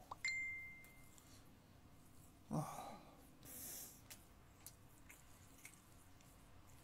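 A man sighing: a short low groan with falling pitch about two and a half seconds in, then a breath blown out through pursed lips. Near the start a short, high, steady tone lasts about a second.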